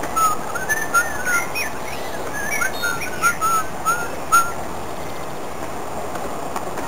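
A person whistling a quick run of short, slurred notes that slide up and down, stopping about four seconds in, over a steady background hiss.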